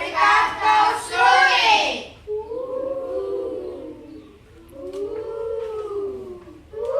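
A group of children's voices chanting together, then two long wavering 'hooo' calls in children's voices that rise and fall in pitch.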